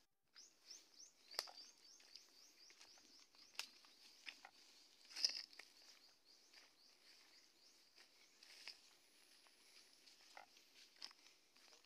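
Faint footsteps crunching through dry grass and fallen twigs, with a few sharper snaps, the loudest about five seconds in. Behind them runs a faint, high chirping that repeats rapidly, about four times a second.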